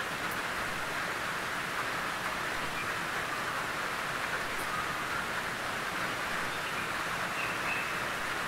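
Steady rain drumming on a tin roof, an even hiss of many drops on metal sheeting.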